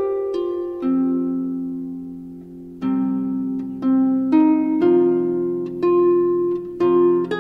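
Background music of plucked-string notes and chords, each struck sharply and fading away, with a slow, lingering stretch about a second in before the notes pick up again.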